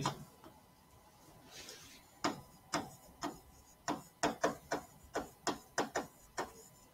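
A digital pen's tip tapping and clicking on a writing screen during handwriting. About a dozen sharp clicks come at an uneven pace, starting about two seconds in.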